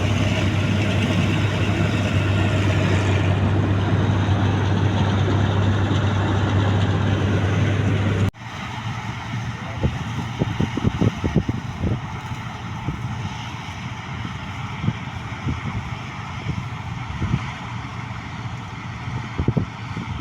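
Combine harvester running steadily with a strong low hum. After a sudden cut about eight seconds in, a quieter, uneven clatter of knocks and rattles follows.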